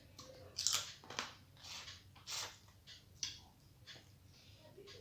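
A person chewing a mouthful of food, with short, irregular wet mouth clicks and crunches close to the microphone.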